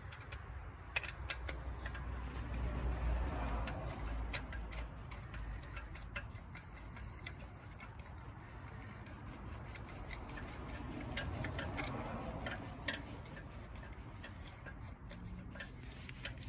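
Ratchet wrench clicking in irregular runs as it turns a spark plug socket down in the plug well, working a spark plug loose.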